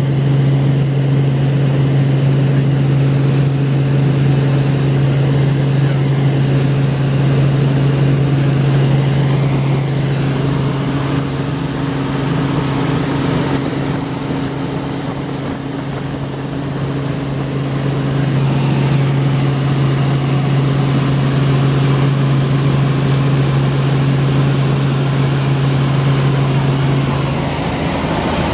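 Robinson R44 Clipper II helicopter in flight, heard from inside the cabin: a steady, loud drone of rotor and six-cylinder Lycoming piston engine, with a deep constant hum over a rushing noise. The deep hum drops away just before the end.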